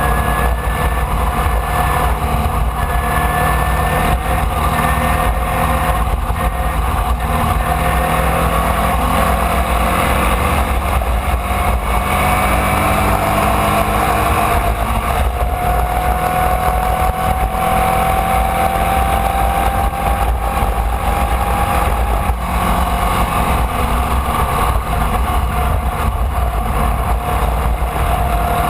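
Onboard sound of a Formula Vee racing car's air-cooled Volkswagen flat-four engine running under load. Its pitch climbs slowly for a long stretch, drops about 22 seconds in, then starts climbing again, over a heavy rumble of wind on the microphone.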